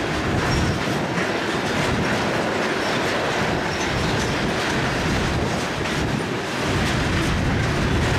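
Welded rail train's loaded flatcars rolling steadily past, wheels running on the rails in a continuous rumble, with wind buffeting the microphone.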